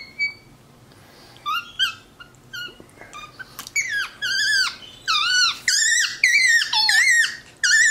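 Tufted capuchin monkey giving high-pitched squeaky calls, each sliding up and down in pitch: a few scattered ones at first, then a quick string of them in the second half.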